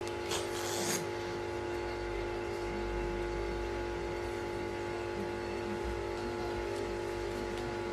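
A steady hum of several fixed tones over a low rumble, unchanging throughout, with a brief rush of hiss in the first second.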